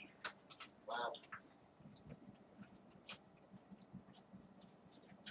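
Quiet pause filled with faint scattered clicks and small mouth sounds from people tasting a strong IPA, with a brief short voice-like sound about a second in.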